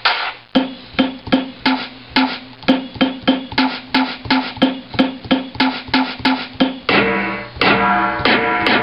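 Rhythmic percussion beat, about three hits a second, each hit carrying a short pitched tone; about seven seconds in the hits give way to a sustained chord.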